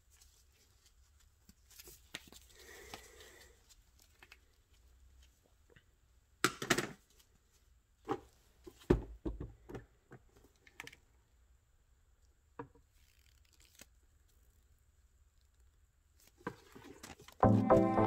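Gloved hands handling a foam air filter and the plastic airbox: scattered rubbing and tearing-like scrapes with a few knocks, the loudest a clatter about six and a half seconds in. Background music starts just before the end.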